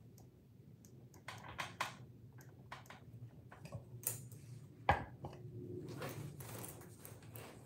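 Scattered small clicks and knocks of objects being handled on a desktop, with one sharper knock about five seconds in.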